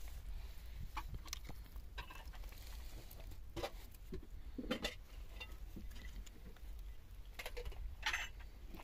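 Scattered light clicks and rustles of thin wooden sticks and plastic twine being handled while the rungs of a stick door are lashed on with twine. A few sharper knocks stand out around the middle and near the end, over a low steady rumble.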